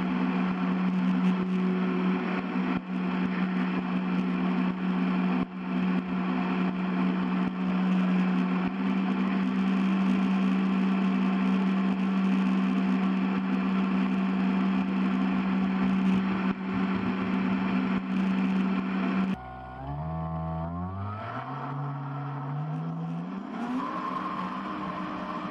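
Radio-controlled boat's electric motor and propeller running at a steady speed, a steady hum with overtones. About three-quarters of the way through, the sound changes suddenly to a quieter, lower tone that climbs in steps.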